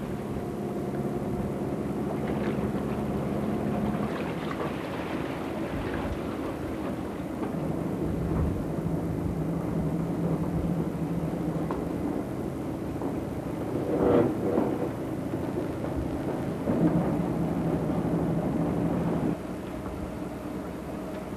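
A fishing boat's engine and deck machinery running: a steady hum over a rushing noise. The hum changes pitch a few times, there are two louder surges in the second half, and the level drops shortly before the end.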